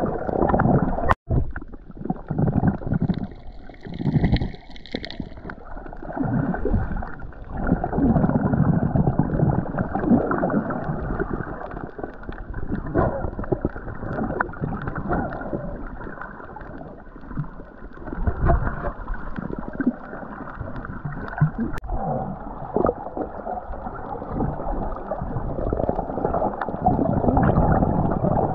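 Water sloshing and gurgling in an uneven rush, muffled, with little high-pitched sound: snorkeling in the sea.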